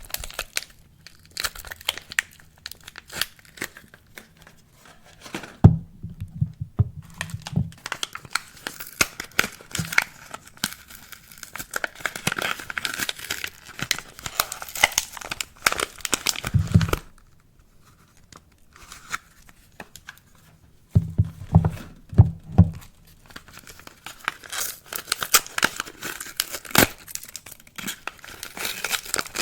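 Wrapping on soap bars being unwrapped: crinkling and tearing in irregular bursts, with a few soft handling thumps and a pause of a few seconds partway through.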